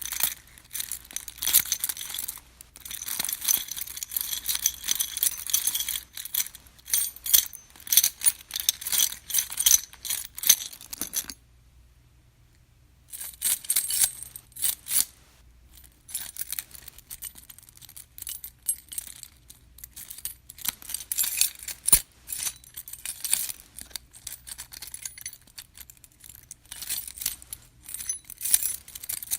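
A bunch of metal keys shaken and jangling, a bright high-pitched jingle. It runs continuously for about eleven seconds, stops for about two seconds, then resumes in shorter bursts of shaking.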